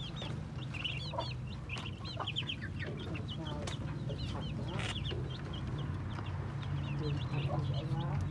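A brood of ducklings peeping continually, many quick, high chirping calls overlapping as they feed, with a few sharp clicks among them. A low steady hum runs underneath.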